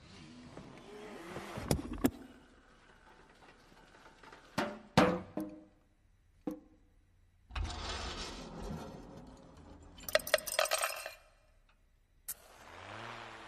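Metal and plastic car parts knocking, clinking, rolling and sliding into one another in a chain-reaction contraption. There are single sharp knocks and clinks, the loudest about five seconds in, with rasping rolling and sliding between them. A quick rattle of clicks comes about ten seconds in, and a wavering whirr near the end.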